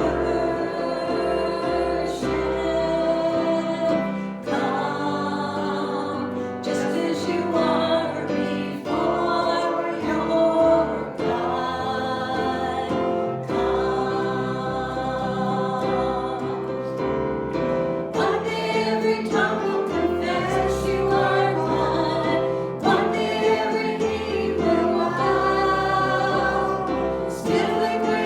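Congregation and worship group singing a gospel song together, with instrumental accompaniment and a steady bass line.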